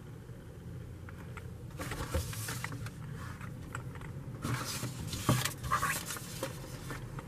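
Paper and packaging being handled: two spells of rustling and scraping, with a sharp knock about five seconds in, over a steady low hum.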